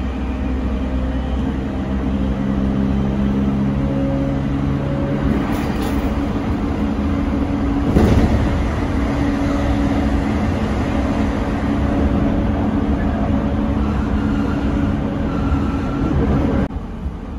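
Interior running sound of a JR East 209 series 1000-subseries electric train: the steady whine tones of its Mitsubishi GTO-thyristor VVVF inverter and traction motors over the rumble of the wheels on the rails, heard from inside the passenger car. There is a brief loud thump about eight seconds in, and about a second before the end the inverter tones stop, leaving quieter running noise.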